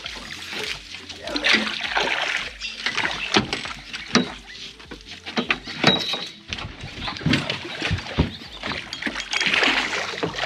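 Irregular water splashing from a hooked barramundi thrashing at the surface beside a small boat, with scattered sharp knocks.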